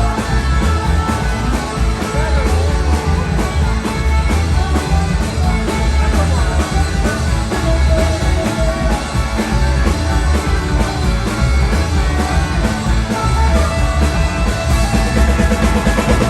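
Rock band playing loudly, with heavy bass and a steady drum beat.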